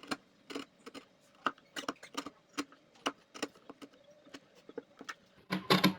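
Irregular light clicks and knocks of woodworking, wood and hand tools knocking, about two or three a second, with a quick run of louder knocks near the end.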